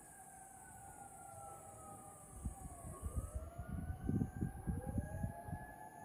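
Several fire engine sirens wailing at once, overlapping, their pitch falling and rising again; one winds down and back up about halfway through. Low rumbling runs beneath, loudest in the second half.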